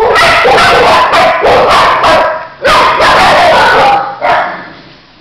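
Dogs in shelter kennels barking loudly, barks one after another almost without a break, dying down near the end.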